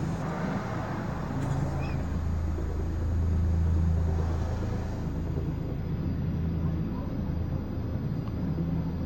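Low, steady rumble of low-flying aircraft overhead, swelling about three seconds in and easing off again.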